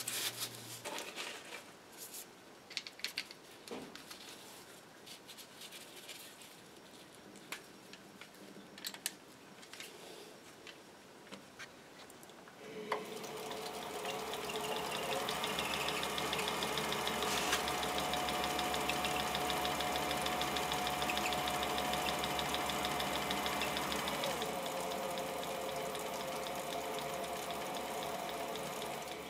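Small metal clicks and knocks as a six-jaw chuck is fitted onto the spindle of an Atlas 618 bench lathe. About thirteen seconds in, the lathe starts up and runs steadily under its belt drive with the chuck spinning, a steady mechanical hum with a fast even patter, easing slightly in level near the end.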